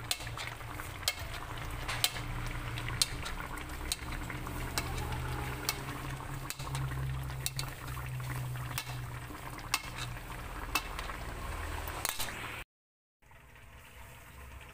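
Coconut milk simmering around tilapia in a metal pan, bubbling with frequent sharp pops over a low steady hum. The sound drops out briefly near the end and comes back quieter.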